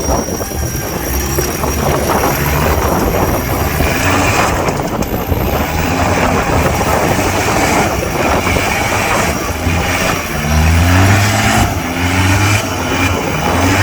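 Off-road 4x4 vehicle engine running hard, revving up several times with rising pitch in the second half.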